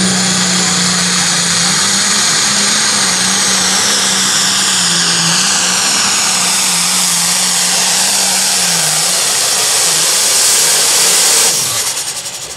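Turbocharged diesel engine of an International pulling tractor at full throttle, dragging the sled down the track, with a high turbo whine that slowly falls in pitch over the second half of the run. The engine sound drops off sharply near the end as the pull stops.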